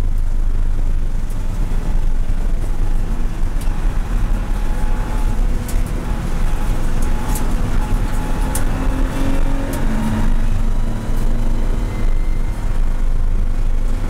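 Cabin sound of a BMW M235iR race car at speed: its turbocharged straight-six running at high revs over road and wind noise. The engine note dips through a corner in the middle, then rises again as the car accelerates out.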